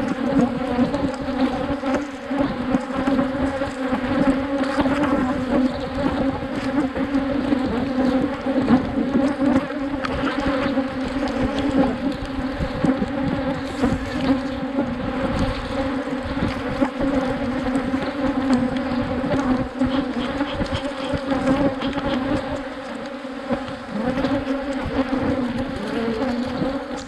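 Many Africanized honeybees buzzing around an opened hive, a steady, fairly loud hum that holds the same pitch throughout.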